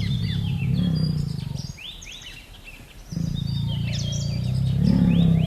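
A large animal's low, rasping growl in two long stretches, the second starting about three seconds in, with birds chirping throughout.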